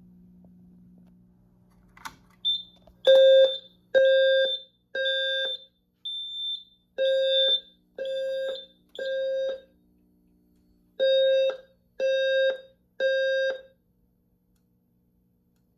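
Simplex 4100ES fire alarm system sounding its evacuation signal in the temporal-3 pattern: three low tone pulses about a second apart, a pause, then the group repeats, three groups in all. A click and a brief high beep come just before the first pulse, and another lone high beep falls in the first pause.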